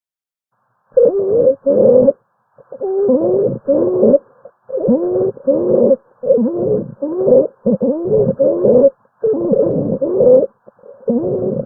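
Abnormal lung sound, auscultated: short, quick breaths in about two-a-second bursts, each carrying several musical tones that bend in pitch, a wheeze.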